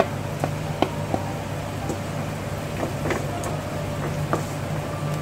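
Chopped onions frying in oil in a wok with a steady hiss, and a wooden spatula tapping and scraping against the pan several times at irregular moments as the onions are stirred. A steady low hum runs underneath.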